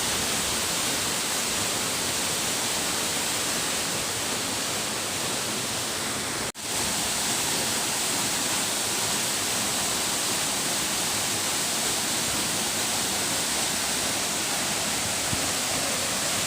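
Saeng Chan waterfall, water falling and rushing in a steady, unbroken noise. It cuts out for a split second about six and a half seconds in, then comes straight back.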